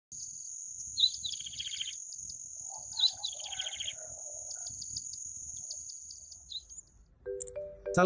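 Yellow-bellied prinia singing: two short phrases about two seconds apart, each a sharp high note running into a fast trill, then a few scattered short notes. A thin steady high whine runs underneath until near the end.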